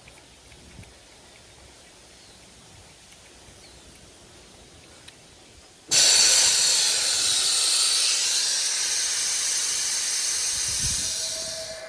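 A loud, steady hiss of pressurised gas rushing out through a valve or hose fitting. It starts suddenly about halfway in and fades near the end.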